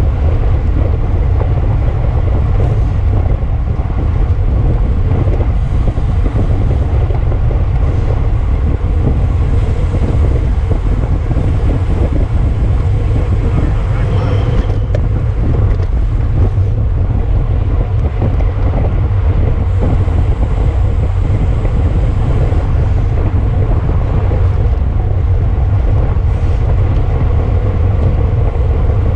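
Wind buffeting the microphone of a camera carried on a moving bicycle: a loud, steady low rumble.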